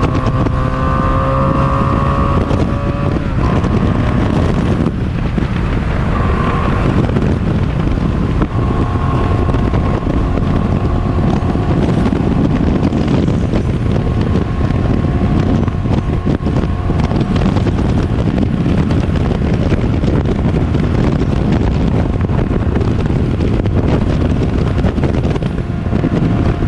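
1983 Honda Sabre 750's V4 engine running at highway speed, its pitch climbing in the first few seconds and then holding steady, under heavy wind noise on the microphone.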